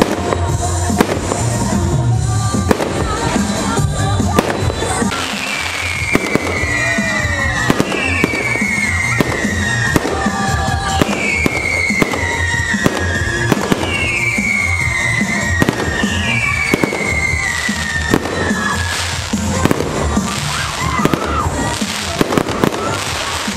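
Aerial fireworks display: a rapid, continuous string of shell bursts and crackle, with sharp bangs coming about once or twice a second.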